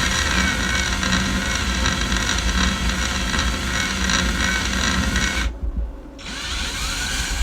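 Power drill fitted with a metal-drilling bit boring slowly into an endplate, running steadily with a faint whine; it stops briefly about five and a half seconds in, then starts again.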